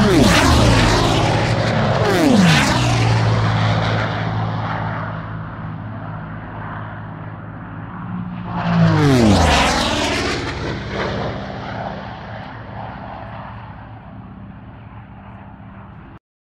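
Aircraft flying past close by, its pitch falling sharply as it goes by, loudest right at the start and again in a second pass about nine seconds in. The engine sound fades between the passes and cuts off suddenly near the end.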